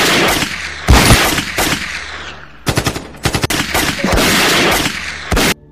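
Dubbed machine-gun fire in rapid bursts. A brief pause about halfway, a run of spaced single shots, then a last burst that cuts off suddenly near the end.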